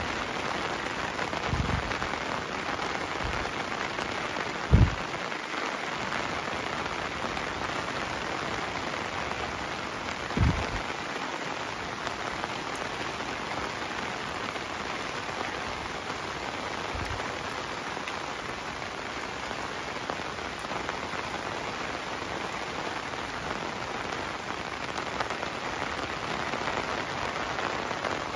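Heavy rain falling steadily, a dense, even hiss of rain on the ground and surfaces. A few short low thumps break through, the loudest about five seconds in and another about ten seconds in.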